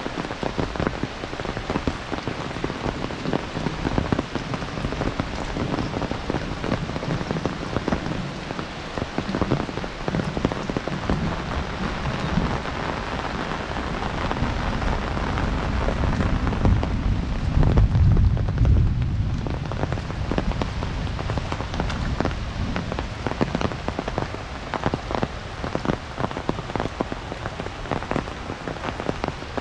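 Heavy monsoon rain pouring steadily, with close drops pattering sharply near the microphone. About halfway through, a low rumble of thunder rises for a few seconds and fades.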